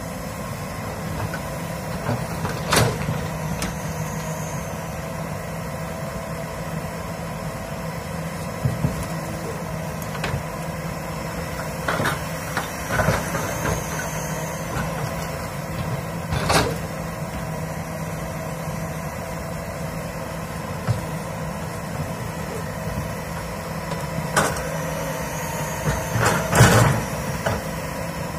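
Komatsu PC200 excavator's diesel engine running steadily while the machine works, with a faint high whine that rises and falls three times. Sharp knocks and cracks come every few seconds, the loudest cluster near the end.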